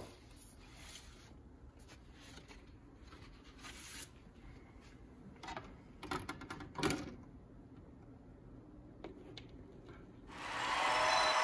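Quiet handling of a vinyl record: an album drawn from a shelf and the disc laid on a small suitcase turntable, with soft rustles and a few light knocks and clicks around the middle. Near the end, music fades in and quickly gets loud.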